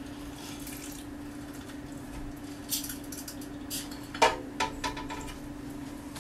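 Hinged hand citrus press squeezing lemon over a blender jar: a few light clicks and clinks, the loudest about four seconds in with a brief ring, over a steady low hum.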